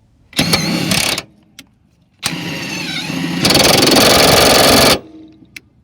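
Impact wrench with a half-inch Torx impact socket running on a factory-Loctited Torx seat bolt of a Ford Transit: a short burst, then a longer run about two seconds in that gets louder for its last second and a half before stopping.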